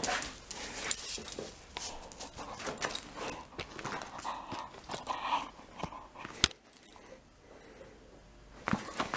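Dog tugging on a knotted rope toy, with short whines, scuffling and rattling, and a single sharp click about six and a half seconds in.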